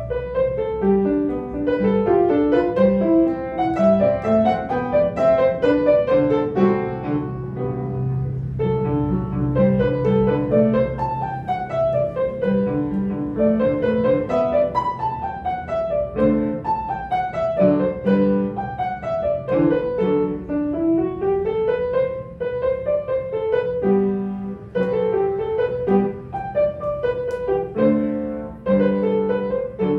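Upright piano played solo: a quick melody of separate notes over a lower accompaniment, with fast scale runs falling and then rising a little past the middle.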